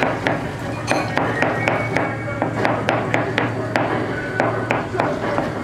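Cleaver chopping tomato on a plastic cutting board: quick, uneven knocks of the blade hitting the board, about three or four a second.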